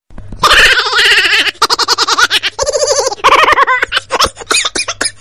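High-pitched giggling laughter in quick repeated bursts, with the pitch wavering up and down and short breaks between runs.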